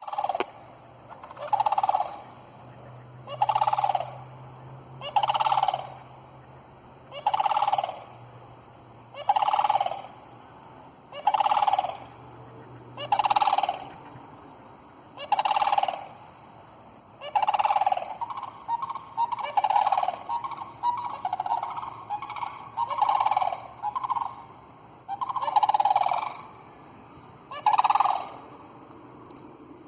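A flock of sandhill cranes calling with rolling, rattling calls, about one every two seconds. A denser run of overlapping calls from several birds comes in the middle.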